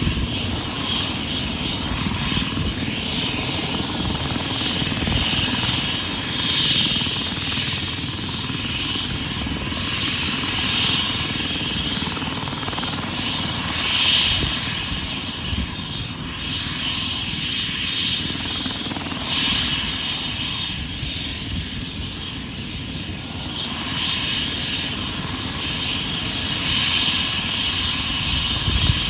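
Medevac helicopter running on the ground: steady rotor and engine noise with a high turbine whine that swells and fades every few seconds.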